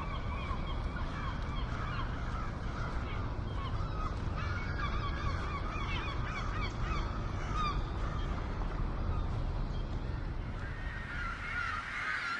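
A flock of gulls calling: many short, overlapping cries at once, over a steady low rumble.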